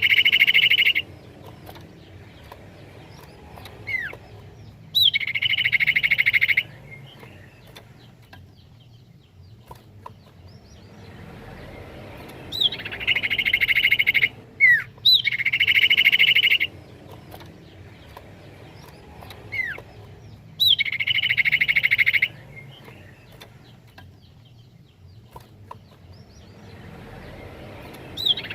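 Common iora (cipoh) song: a quick whistled note sweeping up and down, followed by a loud buzzy trill lasting over a second, repeated five times at irregular gaps, with a few lone whistle notes in between.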